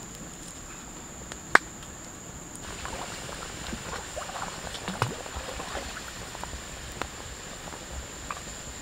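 Wood cooking fire crackling and pork curry simmering in a wok on it: scattered small pops and crackles, after one sharp click about a second and a half in.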